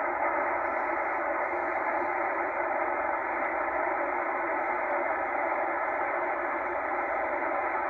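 Tecsun H-501X shortwave receiver in upper-sideband mode giving a steady hiss of band static from its speaker while it is tuned through the upper 14 MHz range. The hiss is thin and muffled, cut off at the low and high ends by the receiver's narrow sideband filter.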